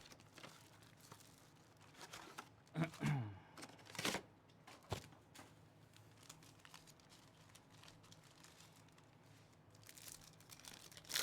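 Sports card pack wrappers being torn open and crinkled by hand, faint and intermittent, with a few louder rustles about three and four seconds in and a sharp click about five seconds in.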